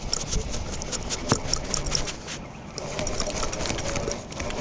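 Fishing reel ticking rapidly while a hooked fish is being played, with a steady hum joining in over the second half.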